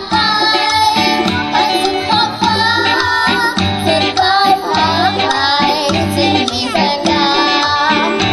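Live band playing a song, with guitars, drums and singing.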